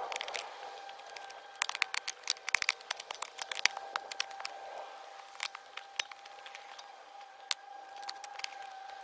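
Steel spade digging into stony ground: repeated sharp clinks and scrapes of the blade striking and prising loose stones. The strikes come in a dense run a couple of seconds in, then more scattered.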